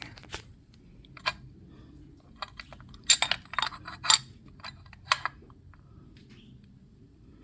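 Light metallic clicks and clinks of small metal RC car chassis parts being handled and fitted together, scattered taps with a quick cluster about three to four seconds in.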